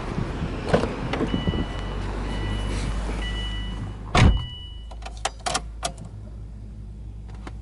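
A Subaru Impreza WRX's driver's door is opened with a few clicks while the car's warning chime beeps in long pulses. About four seconds in the door shuts with a heavy thud, and a quick run of sharp clicks follows as the ignition is switched on.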